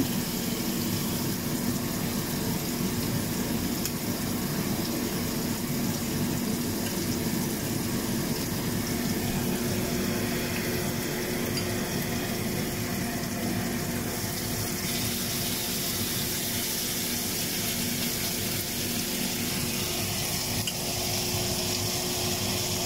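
Fish pieces frying in hot oil in a cast iron skillet, a steady sizzle, with a low steady hum underneath.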